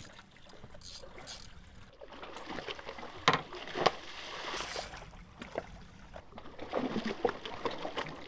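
Water lapping and sloshing against a boat's hull, with two sharp knocks a little over three seconds in and a few lighter knocks near the end.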